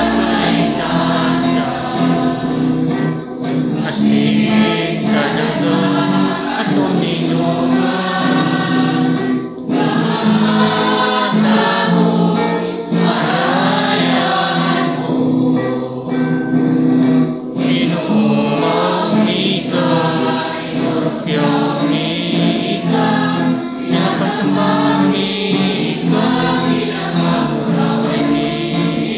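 Church choir singing a Mass hymn, several voices together over steady held low notes, without a break.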